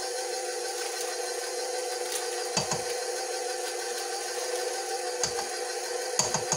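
KitchenAid Professional 5 Plus stand mixer running at low speed with its wire whisk attachment, beating dough in a steel bowl: a steady motor hum. A few short, light knocks come through it, near the middle and near the end.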